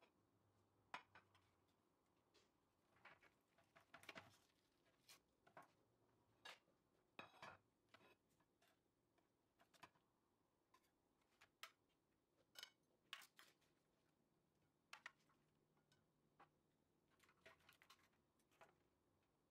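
Faint, irregular clicks and scrapes of a knife and spatula against a metal baking tray as baked fish and potatoes are cut and lifted out in portions.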